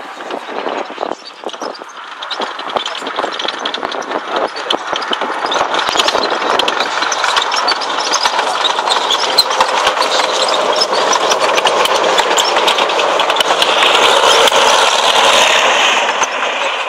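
Soviet T-34-76 tank driving: its V-12 diesel engine running under the constant clatter of its steel tracks, growing louder as it comes closer and loudest just before the end.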